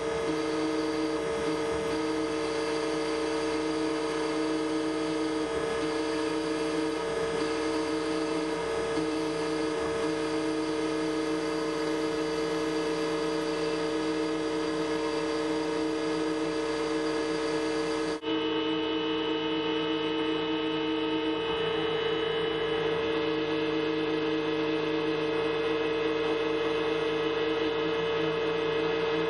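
Roland MDX-540 milling machine's spindle running with a steady whine of several fixed tones while a small bit mills the copper of a printed circuit board. The sound briefly cuts out about two-thirds of the way through, then carries on the same.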